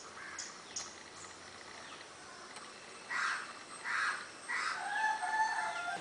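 A rooster crowing once, starting about three seconds in: a few rising syllables ending in a long held note. Small birds chirp faintly before it.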